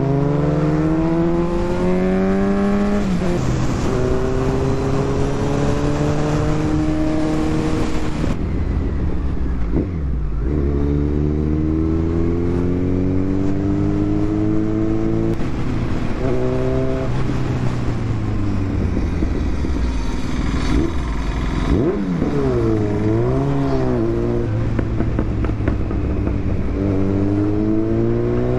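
Kawasaki Z900's inline-four engine pulling hard through the gears: the pitch climbs steadily, then drops suddenly at upshifts about 3, 10 and 16 seconds in, and the revs swing up and down a few times around 22 seconds in before climbing again.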